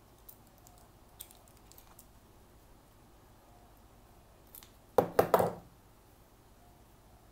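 Faint clicks of a multi-tool hex key on the bolt of a Shimano SPD pedal's platform adapter, then a short clatter of three or four knocks about five seconds in as the pedal and tool are handled.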